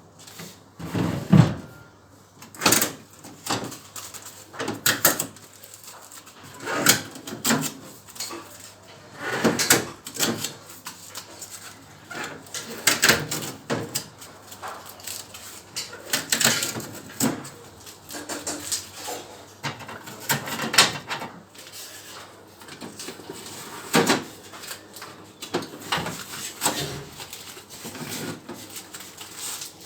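Handling noises of a new Whirlpool refrigerator being unpacked and moved about: irregular knocks, bumps and rustles, one every second or two.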